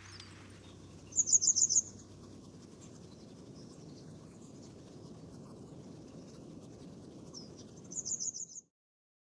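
A small bird calling twice, each call a quick high trill of about six notes, over a low steady outdoor background noise; everything cuts off abruptly near the end.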